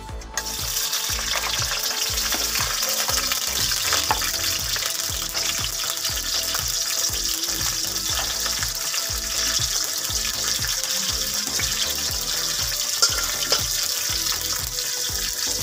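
Chopped green chillies sizzling in hot oil in a steel kadai. The sizzle starts about half a second in and holds steady, with a few sharper pops.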